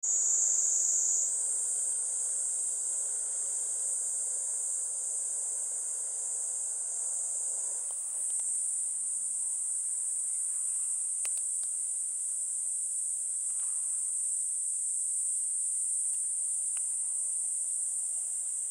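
Steady high-pitched drone of insects, with a few faint ticks near the middle.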